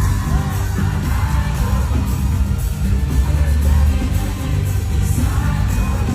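Live Afrobeats concert music played loud over an arena sound system, with a heavy, steady bass beat and singing, and crowd noise mixed in.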